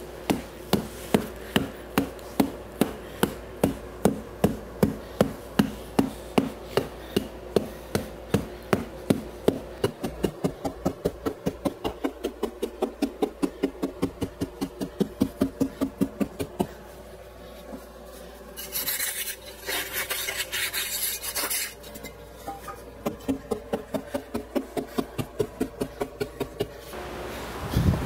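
Wooden mallet pounding damp refractory castable down into a furnace base ring to pack it: steady dull blows, about two a second at first and nearly three a second later. About two-thirds of the way through the blows stop for a few seconds of scraping noise, then start again.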